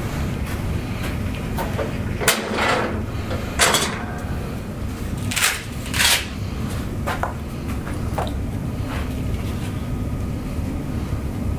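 A few scattered knocks and rustles of people moving on a padded chiropractic treatment table, the loudest around two, three and a half, five and a half and six seconds in, over a steady low hum.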